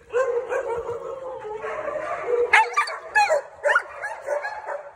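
Dogs whining and yipping close up: a long held whine through the first half, then a quick run of short, sharp yips a little past the middle.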